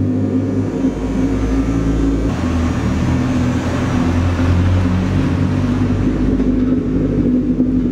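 Chevy Cruze engine running as the car drives, its note shifting in pitch partway through.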